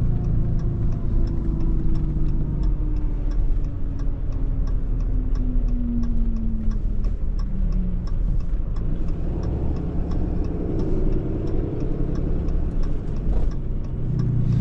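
Tow truck's engine running on the road, its note falling slowly as the truck slows, then climbing again from about nine seconds in as it speeds up. A turn signal ticks steadily at about three clicks a second.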